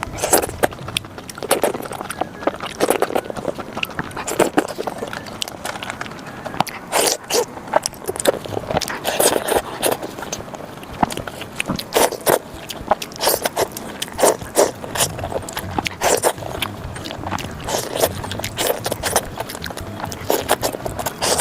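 Close-miked eating sounds, chewing and biting with many sharp, irregular mouth clicks and smacks, over background music.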